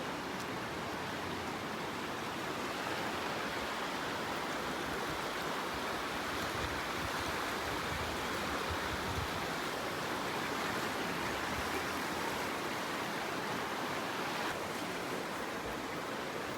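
Steady rushing of the River Aare's fast glacial water through the narrow gorge, an even roar with no breaks.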